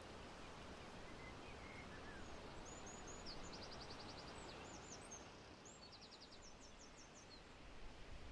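Faint steady outdoor background noise with a small bird singing high, rapid trills twice, each lasting about a second.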